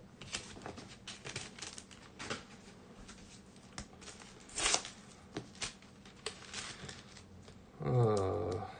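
Yu-Gi-Oh! trading cards and their packaging being handled: scattered light rustles, slides and taps, the loudest about halfway through. Near the end comes a short vocal sound from the man.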